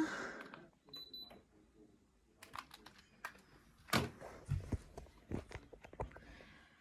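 Daikin split-system air conditioner's indoor unit giving one short high beep about a second in as it takes the remote's switch-on signal. Scattered clicks and knocks follow.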